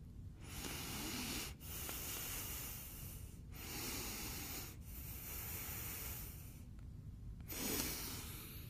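A person breathing heavily and slowly, close to the microphone, with about four or five long breaths in and out, each separated by a short pause.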